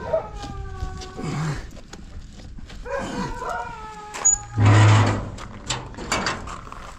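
Pit bull whining in two long, drawn-out cries that fall slightly in pitch. A loud short burst of noise comes about four and a half seconds in.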